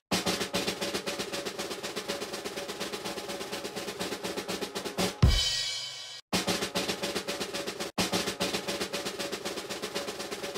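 Intro music: a fast, driving drum beat over a steady held tone. About five seconds in, a loud hit dies away over about a second, then the beat cuts back in.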